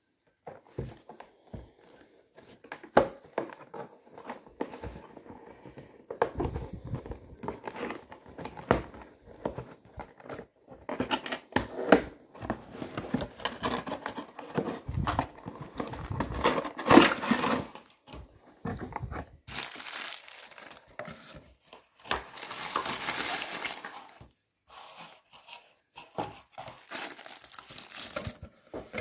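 Cardboard action-figure box being handled and opened, then the figure's white paper wrapping crinkled and crumpled: irregular rustling, tearing and crinkling with a few sharp knocks.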